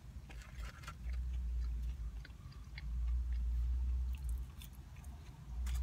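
Close-up chewing and mouth sounds of a person eating French fries: scattered soft crunches and wet clicks, over a low rumble that comes and goes.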